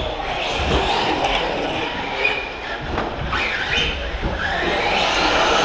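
Electric RC short-course trucks running on an indoor track, their motors whining up and down in pitch as they accelerate and brake.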